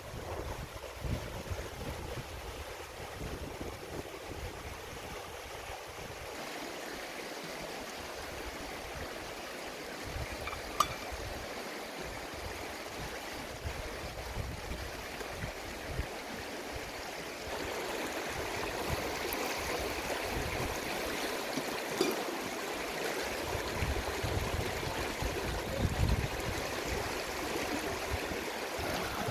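Shallow river rushing over a rocky bed: a steady, even rush of water that grows louder about two-thirds of the way through.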